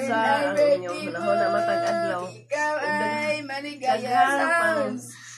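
A person singing a slow melody with long held notes, breaking off briefly about two and a half seconds in.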